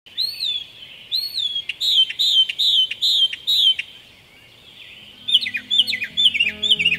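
A bird calling: a series of loud, high, arched notes that rise then fall, about two a second, pausing a little before four seconds in. About five seconds in a faster run of calls starts, with plucked-guitar music coming in underneath.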